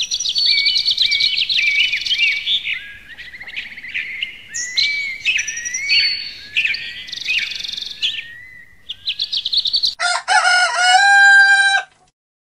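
Birdsong: a mix of quick chirps, whistles and buzzy trills. About ten seconds in, it gives way to a rooster crowing once, a call of about two seconds that stops abruptly.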